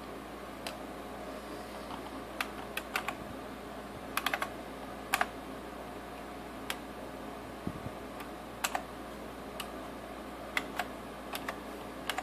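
Password being typed on a computer keyboard: irregular, unhurried key clicks, some single and some in quick runs of two or three, over a steady low hum.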